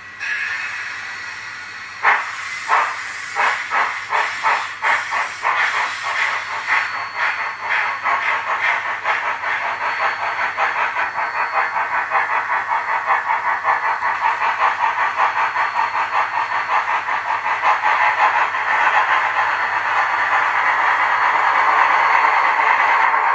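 Simulated steam-locomotive sound from two double-headed brass model steam locomotives: a hiss of steam, then from about two seconds in a chuffing that starts slow and speeds up steadily into fast, even exhaust beats as the engines pull away.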